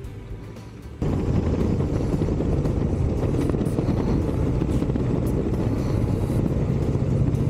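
Harley-Davidson Dyna Super Glide Custom's V-twin engine running steadily at road speed, with wind noise. It cuts in suddenly about a second in, after a short stretch of quieter music.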